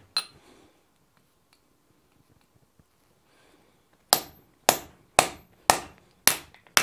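Hammer striking a hand punch on hot wrought iron over an anvil, driving a small square nail hole. One blow near the start, a pause of a few seconds, then six evenly spaced blows about two a second, each with a brief metallic ring.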